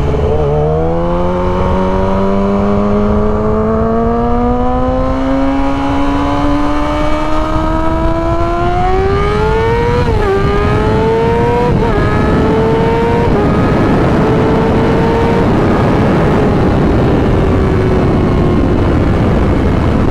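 Yamaha R6 sport bike's inline-four engine pulling hard in one long climb up the revs, then shifting up quickly several times and holding a high steady speed before easing off slightly near the end. Wind rushes throughout.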